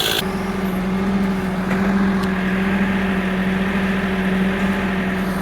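An engine running steadily at a constant speed, an even hum that starts just after the beginning.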